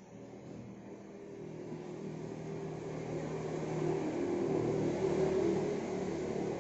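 A motor vehicle's engine running with a steady hum, growing gradually louder over several seconds.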